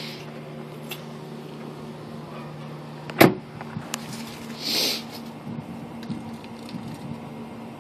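2006 Pontiac GTO's V8 idling steadily, with one sharp knock about three seconds in and a brief hiss a little after.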